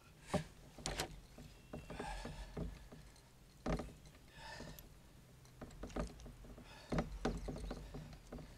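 Scattered knocks and scuffs against a kayak hull, with a few short splashes of water, as a large channel catfish is handled at the side of the boat for release.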